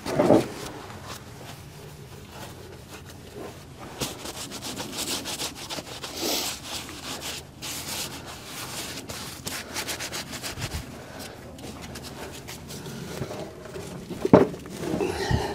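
Gloved hands gripping and twisting a new spin-on oil filter to tighten it hand-tight, a rough rubbing and scraping with scattered small clicks and one louder knock near the end.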